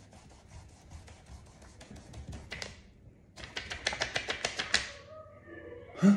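Fingertips tapping quickly on the paper pages of a workbook lying on a table: a run of light clicks that becomes a faster, louder patter about three and a half seconds in. A short loud vocal outburst comes near the end.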